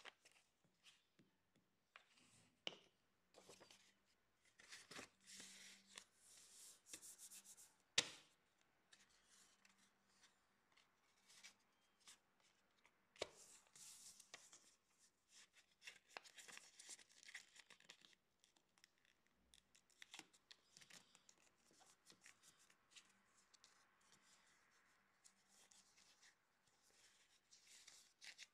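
Faint rustling and crinkling of paper sheets being folded and creased by hand, in short irregular spells, with one sharp tap about eight seconds in.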